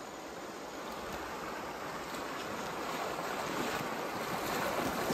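Shallow mountain stream rushing over rocks, with the sloshing of legs wading through the water, growing steadily louder toward the end.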